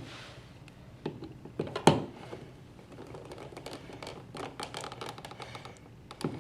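Small clicks and taps of a plastic cover plate being handled and fitted over a wall outlet, with one sharper knock about two seconds in and a run of quick small clicks in the second half.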